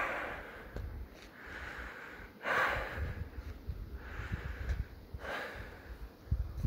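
A person breathing heavily close to the microphone, a hissing breath about every second and a half, over a low rumble.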